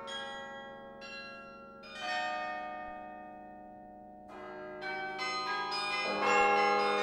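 Bells of the Laura Spelman Rockefeller Memorial Carillon played from the baton keyboard. A few widely spaced chords ring out and die away. From about four seconds in, the notes come quicker and louder.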